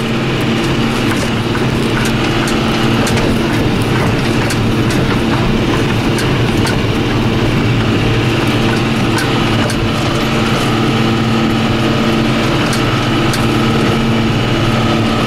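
John Deere 7530 tractor's six-cylinder diesel engine running steadily under load, with frequent light rattles and knocks, as the tractor pulls a Marston grain trailer.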